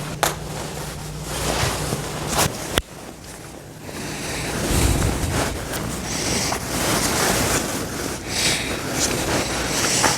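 Rustling and brushing of thick winter clothing, a puffy coat and padded winter pants being put on, rubbing close to the microphone, with a few sharp clicks in the first three seconds.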